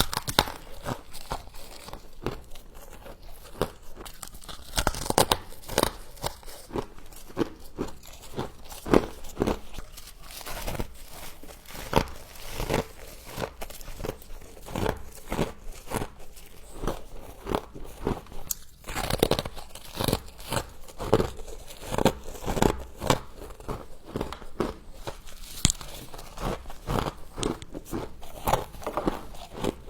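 Mouthfuls of frost being bitten and chewed: a continuous run of irregular crunches, several a second.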